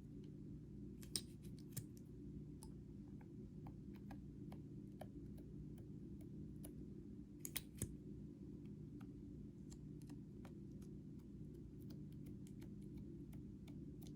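Scattered small clicks and taps from slime and makeup being handled, the loudest about a second in and a cluster near eight seconds, over a low steady hum.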